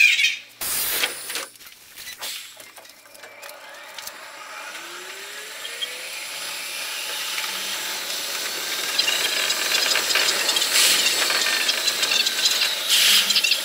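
Sped-up onboard sound of an electric commuter train pulling away from a station: brief hissing and knocks at the start, then a motor whine rising in pitch as the running noise grows steadily louder with the train's acceleration, turning into a fast rattle.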